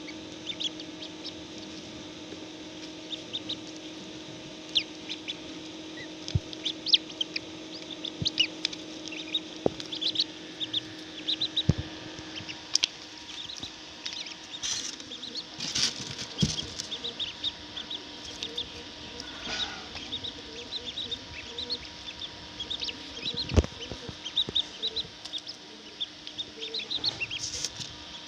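Many young chicks peeping in rapid, irregular short high chirps over the steady hum of an incubator fan, with a few sharp knocks.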